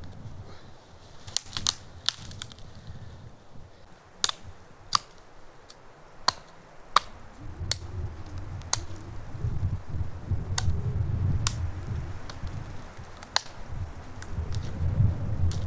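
Dry sticks and twigs snapping in the forest: about a dozen sharp, separate cracks at an irregular pace, over a low rumble that builds from about halfway through.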